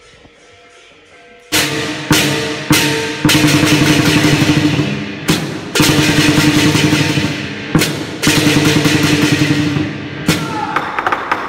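Percussion music of drum and cymbal strikes with ringing tones underneath, in the style of lion dance drumming, starting about a second and a half in after a quiet moment.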